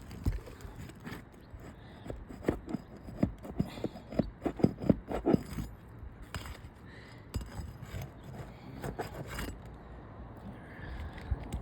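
Asphalt roof shingle being worked loose with a roof snake shingle-lifting tool: a run of short scrapes and crackles from about two to six seconds in, with scattered low knocks.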